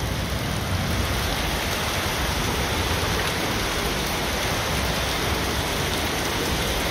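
Steady downpour of rain falling on a wet paved street, an even, unbroken hiss.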